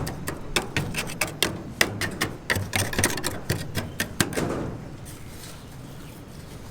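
Rapid, irregular sharp taps and knocks, several a second, that thin out and stop about four and a half seconds in.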